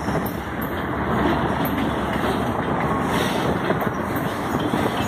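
Freight train of boxcars rolling past: a steady rumble and clatter of steel wheels on the rails.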